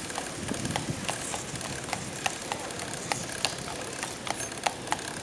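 Bicycle riding along a paved road: a steady rushing noise with sharp, uneven clicks about two or three times a second.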